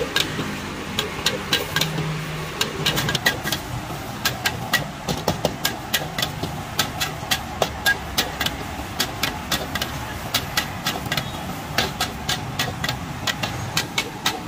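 A metal spatula clanks and scrapes against a steel wok as vegetables are stir-fried, about three sharp strikes a second, unevenly spaced, over a steady background rush.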